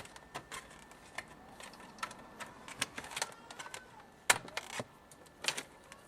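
Irregular light clicks and taps, with a sharp louder click about four seconds in and another about five and a half seconds in.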